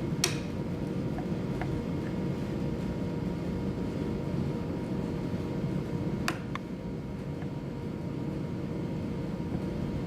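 A few light, sharp taps of a hammer on an awl, setting starter dimples for small hinge screws in wood. Two taps are clear, about six seconds apart, with fainter ones between. A steady ventilation hum runs under them.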